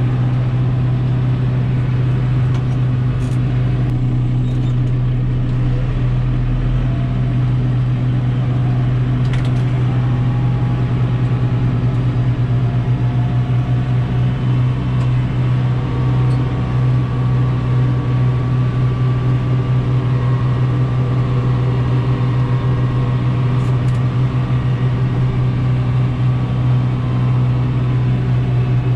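Kubota M6040 tractor's diesel engine running steadily, heard from inside the closed cab.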